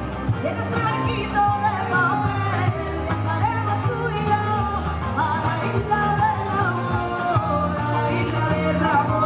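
Live band music: a woman sings a wavering, ornamented melody into a microphone over keyboard and acoustic guitar accompaniment.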